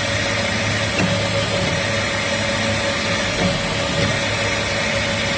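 Wisser belt grinder's electric motor running steadily at full speed, a constant whine with a low hum under it.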